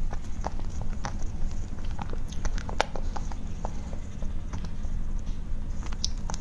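Close-miked ASMR eating sounds: scattered soft clicks and sticky squishes as chopsticks work through a chocolate-glazed cake and she chews, with a sharper click a little before the middle and another near the end. A steady low hum runs underneath.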